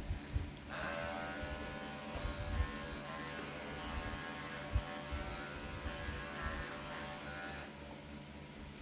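Electric pet clippers switched on and running with a steady buzz for about seven seconds, cutting away a mat of cat fur behind the ear, then switched off about a second before the end.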